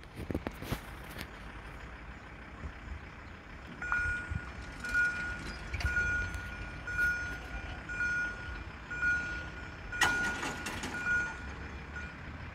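Railway level-crossing warning sounder beeping, a single high tone repeated about once a second, starting about four seconds in while the barriers come down: the signal that a train is approaching. A short burst of noise about ten seconds in is the loudest moment, over a steady low rumble.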